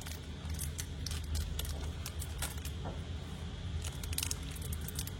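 Scattered light metallic clicks and taps from Zippo lighters being handled, over a steady low hum.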